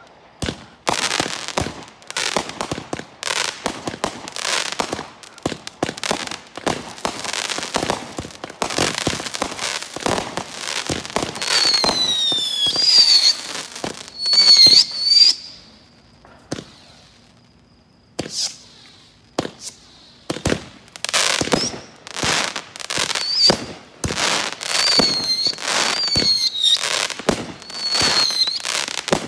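Aerial fireworks chained on a single fuse going off in rapid succession: a dense string of launch thumps and bursting reports, joined about halfway through by whistles that fall in pitch. There is a short lull a little past the middle before the barrage picks up again.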